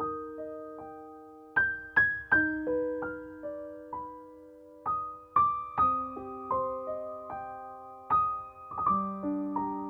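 Gentle piano background music: single notes and small chords struck every second or so, each ringing on and fading slowly.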